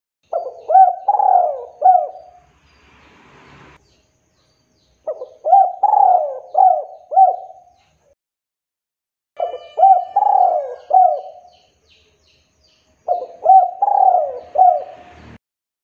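Male spotted dove (tekukur) cooing: four song phrases of four or five short, throaty coo notes each, with pauses of two or three seconds between them.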